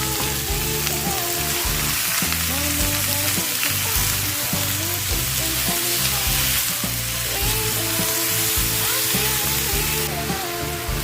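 Eggplant frying in hot oil in a pan, a steady sizzle, with some stirring. Background music with a melody plays underneath.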